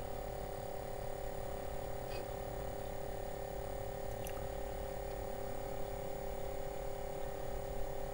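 5.25-inch floppy drive of an Apple II Plus spinning and reading while DOS 3.3 loads Integer BASIC into the language card: a steady whirring hum, with two faint clicks about 2 and 4 seconds in.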